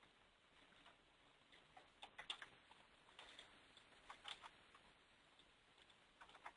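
Faint, scattered clicking from working a computer, a few clicks at a time, against near silence.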